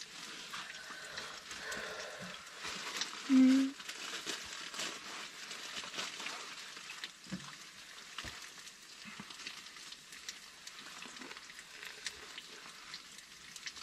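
Food sizzling and crackling in a frying pan, a steady hiss full of small pops. About three seconds in, a person gives a brief hum.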